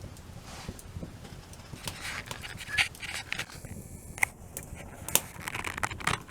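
Wood fire crackling, with irregular sharp pops; the loudest come about three, four and five seconds in. Brief stretches of rustling or scraping run between them.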